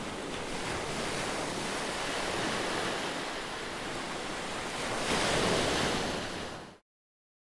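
Small sea waves breaking and washing up a pebble beach, with one wave breaking louder about five seconds in; the sound then fades out quickly near the end.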